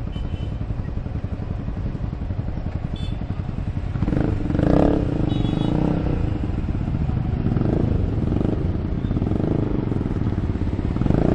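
Yamaha R15 v3's 155 cc single-cylinder engine idling at a standstill amid other motorcycle engines idling in traffic. About four seconds in the engine noise grows louder, with a brief swell as a nearby bike revs.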